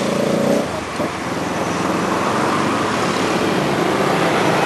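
Street traffic: a motor vehicle's engine running past over steady road noise.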